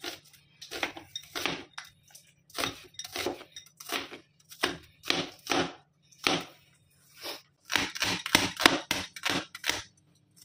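Large stainless-steel cleaver chopping onions and green capsicum on a plastic chopping board: a run of sharp knocks in an uneven rhythm, with a short pause in the middle and a quicker burst of chops near the end.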